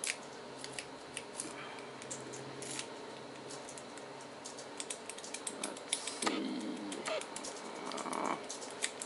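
Goso rake working the pins of a dimple padlock under a tension wrench: a run of small, irregular metal clicks and scrapes, busier a little past halfway.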